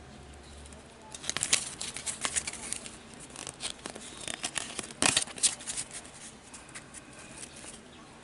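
A Panini Elite trading-card pack being torn open by hand, its wrapper tearing and crinkling in irregular sharp crackles that start about a second in and die away near the end.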